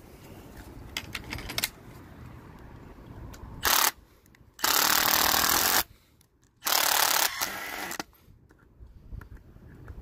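Milwaukee M18 Fuel Gen 3 impact driver driving a 4-inch Torx screw on a 5 Ah battery, in three trigger bursts: a very short one, then two of about a second each. A few clicks come first as the battery pack is fitted.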